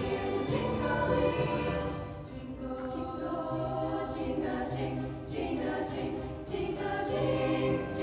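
A choir of mostly female voices sings a Christmas song in sustained chords, with piano accompaniment.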